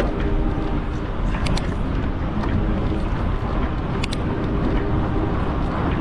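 Fat-tire bike rolling over packed dune sand, a steady low rumble of tire noise and wind on the microphone, with a couple of sharp ticks.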